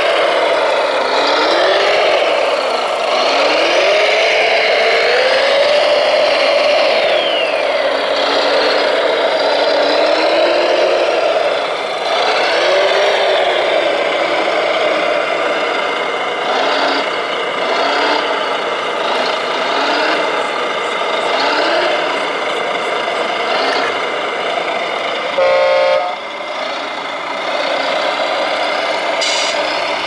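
Radio-controlled Volvo wheel loader model working its bucket, its motors and hydraulics whining up and down in pitch over and over against a steady mechanical hum. A brief horn-like beep sounds near the end.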